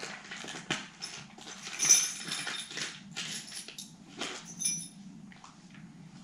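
Plastic hardware bag rustling and crinkling as it is opened, with small metal parts (bolts, washers, an Allen key) clinking in the hand. A sharp click about two seconds in is the loudest sound, and the noise thins out over the last second or two.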